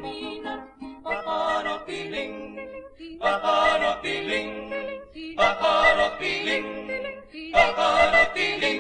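Vocal quintet singing a Venezuelan folk song in close harmony, the voices held in long phrases with vibrato and separated by short breaths. The last phrase is held near the end and then dies away.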